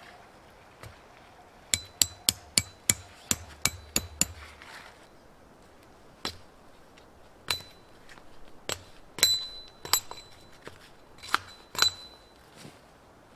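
Tent stakes being hammered in: a quick run of about ten sharp strikes, then slower single strikes spaced a second or so apart, some of them ringing briefly.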